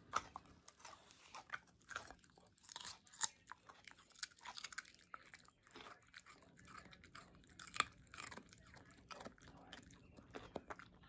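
A dog chewing close up: faint, irregular crunches and wet clicks of its jaws and teeth.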